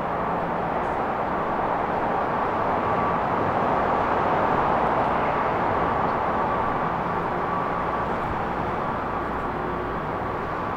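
Steady mechanical drone filling a concrete parking garage, swelling slightly midway, with a faint steady hum running through it.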